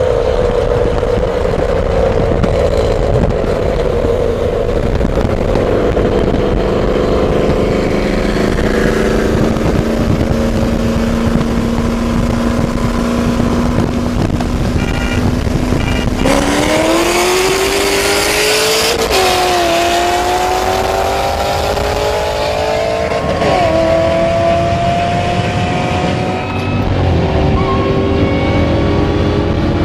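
Magnuson-supercharged Cadillac CTS-V V8 heard from inside the cabin: steady part-throttle cruising, then about sixteen seconds in it goes to wide-open throttle, the engine pitch climbing through the gears with two upshifts heard as pitch dips a few seconds apart. Near the end it eases back to a steady cruise.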